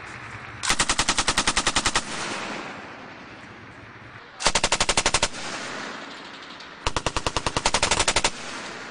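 Belt-fed machine gun firing three bursts of rapid, evenly spaced shots at about ten rounds a second: a longer burst about a second in, a short one midway and another near the end, each trailing off in a short echo.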